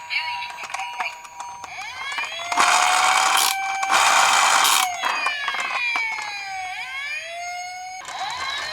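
Electronic siren of a toy emergency-vehicle minicar, starting about two seconds in and wailing with rising and falling glides that overlap as if from more than one toy. A loud rushing noise cuts in over it from about the third to the fifth second.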